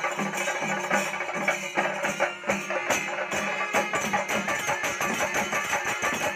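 Panchavadyam temple ensemble playing a fast, dense rhythm: hand-struck timila drums together with ringing ilathalam cymbals, steady and unbroken.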